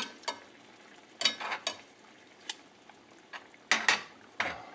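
Metal spoon stirring chicken pieces in cream sauce in a metal skillet: short, irregular scrapes and clinks against the pan.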